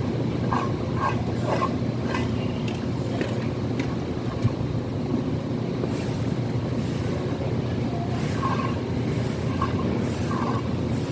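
A steady low machine rumble, like a running engine, with scattered short clinks and scrapes over it.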